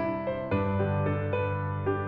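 Background music: soft piano notes over sustained keyboard chords.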